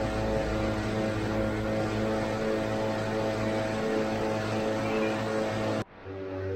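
Indoor bicycle trainer running steadily under pedalling, a loud even whine-and-hum. Near the end the sound cuts off abruptly and picks up again slightly quieter, as at an edit.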